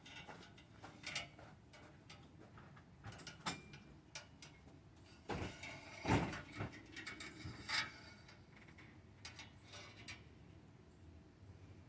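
Faint scattered clicks and a few louder knocks, as of things being handled, with no steady engine sound.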